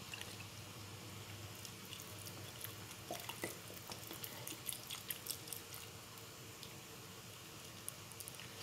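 A pot of hot broth simmering on the stove: faint bubbling with scattered small pops and ticks.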